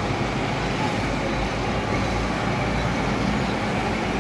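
Road traffic passing on a city street: a steady, continuous noise of engines and tyres.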